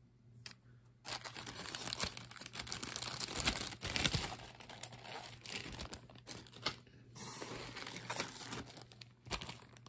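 A thin plastic zip-top bag crinkling as it is handled and pulled open. It starts about a second in and eases off briefly near the end.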